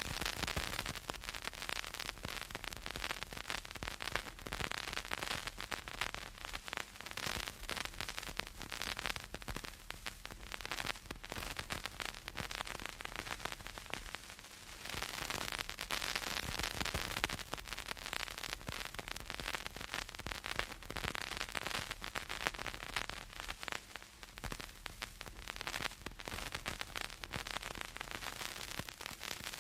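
Vinyl record surface noise: dense crackles and pops over a steady hiss, swelling and fading every few seconds.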